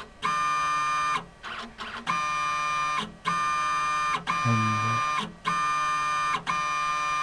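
Automated pipetting analyzer's motor-driven syringe whining in about seven repeated strokes of roughly a second each, with short pauses between. It is drawing up and pushing out liquid over and over to mix water with plasma in a tube.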